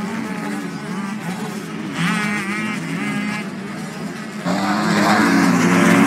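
Motocross motorcycle engines running and revving on the track, their pitch wavering up and down. About four and a half seconds in, a pack of bikes gets suddenly louder and keeps getting louder as it approaches.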